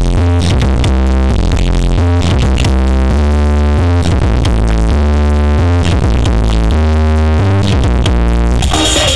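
Electronic dance music remix with a heavy, pounding bass line and a stepping synth melody. A bright hissing noise sweep comes in near the end.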